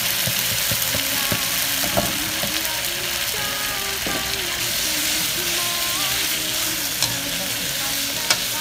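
Bamboo shoots and pork in red curry paste sizzling steadily in a hot wok as a stir-fry, with a few sharp knocks of a wooden spatula against the pan as the mixture is stirred.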